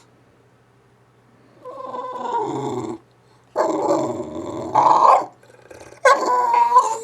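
English bulldog making Wookiee-like growling calls: three drawn-out calls with wavering, gliding pitch after a short quiet start, the last still going at the end.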